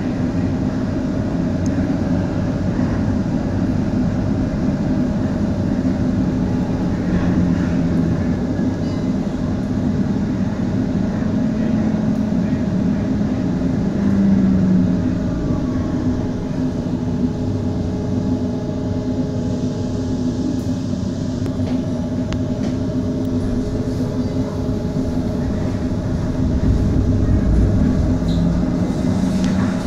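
HTM GTL8 articulated tram running, heard from on board: a steady hum and rumble of the drive and wheels on rail, with a faint whine that slides down and back up in pitch partway through.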